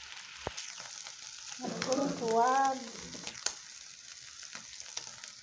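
Beef frying in hot oil in a pan: a steady sizzle, with scattered sharp clicks of a utensil against the pan. A person's voice is heard briefly near the middle.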